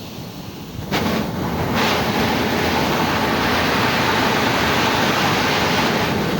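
Workshop-built coffee processing machine running, its loud rushing, clattering noise swelling abruptly about a second in and holding steady until it drops back near the end.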